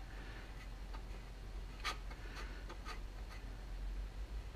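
Faint rubbing of a paper towel wetted with lacquer thinner and wrapped over a gloved fingertip, wiping paint off the ribs of a stainless steel wheel cover, with a few light ticks, the clearest about two seconds in.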